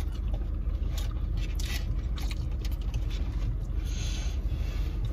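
Steady low hum of a car idling, heard from inside the cabin, with a few soft clicks and a brief scraping rustle about four seconds in.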